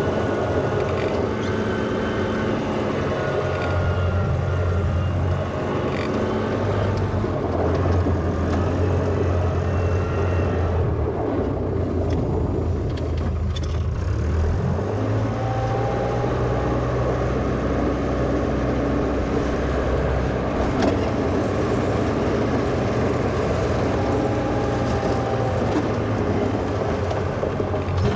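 Engine of a 1963 Volvo LM225 wheel loader running steadily while working snow, its engine speed dropping a little about halfway through, with a faint whine over it.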